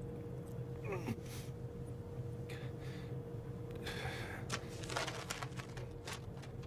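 A person's gasping, heavy breaths and sighs come and go in short bursts over the steady drone of a jet airliner's cabin. They are the breathing of a frightened, nauseous passenger close to vomiting.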